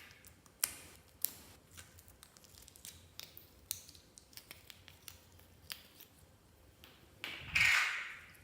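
Clear slime being handled by hand: scattered sticky clicks and small pops, then a louder, longer squelch about seven seconds in.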